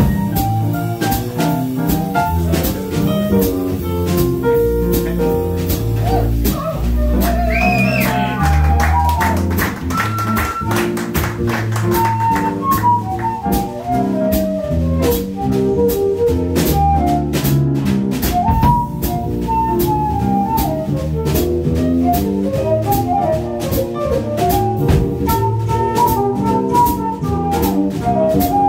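Small jazz band playing a swing number: drum kit keeping time on the cymbals, a double bass walking underneath, and a flute playing a melody line that comes to the fore about halfway through.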